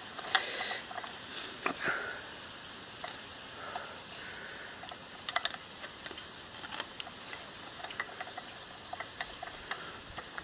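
Crickets trilling steadily in the background, with scattered light clicks and taps throughout.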